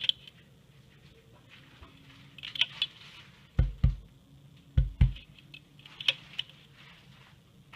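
Light plastic clicks and taps of rubber bands being stretched onto and pushed down a plastic bracelet loom's pegs. Two pairs of dull low thumps come near the middle.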